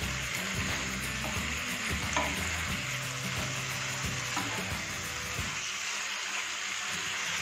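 Taro root pieces sizzling in a masala-coated nonstick frying pan as a wooden spatula stirs them, with a few short scrapes of the spatula against the pan. The yogurt masala is cooking down and drying onto the fried arbi.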